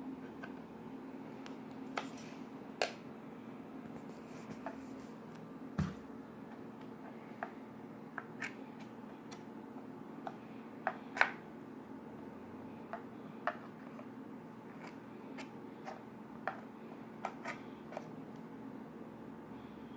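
Scattered sharp little clicks and taps, about twenty at irregular intervals, over a steady low hum.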